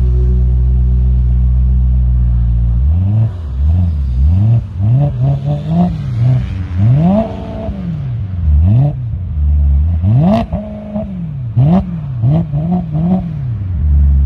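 BMW E92 M3's V8 idling, then from about three seconds in revved in a string of quick blips through its exhaust. A couple of sharp cracks come between revs, and it settles back to idle near the end.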